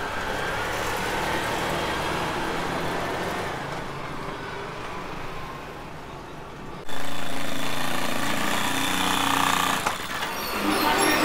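Street sound with vehicle engine noise. About seven seconds in, the sound cuts abruptly to a louder, steadier engine hum.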